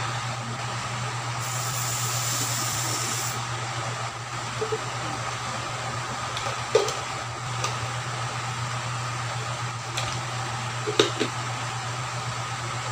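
Steady fan-like hum, with a few light knocks and clicks of plastic bottles and a measuring cup handled and set down on a tiled counter. A short hiss comes about a second and a half in.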